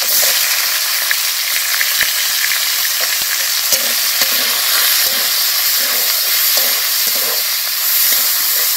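Sliced onions dropping into hot oil in a metal kadai and sizzling loudly, the sizzle jumping up as they go in. A metal spatula scrapes and stirs them in repeated strokes, mostly in the second half.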